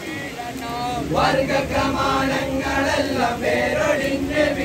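A group of men chanting together in unison, the chant swelling about a second in.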